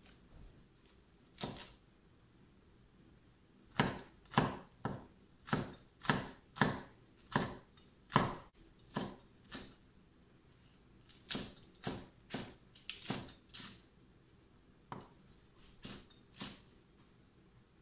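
Knife slicing green onion on a wooden cutting board, each stroke a sharp knock of the blade on the board. The knocks come in uneven runs: one early, a quick run of about a dozen in the middle, a pause, another run of about seven, then a few scattered strokes near the end.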